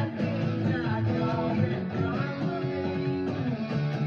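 Rock music led by electric guitar, playing continuously.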